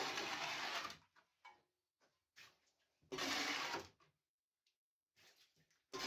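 A shovel scraping and scooping wet sludge off the steel bottom of a narrowboat's hull: three scrapes about a second long, roughly three seconds apart.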